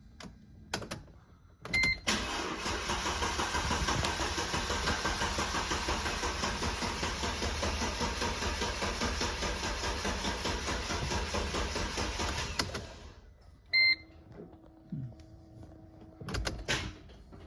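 Mercedes engine cranking on its starter motor for about eleven seconds without catching, with a short electronic chime just before and again after it stops. This is a no-start that the owner puts down to a drained battery.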